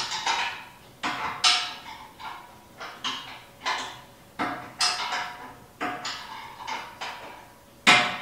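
Metal-on-metal tapping: a tool striking steel bumper hardware in irregular sharp knocks, roughly one or two a second, each ringing briefly.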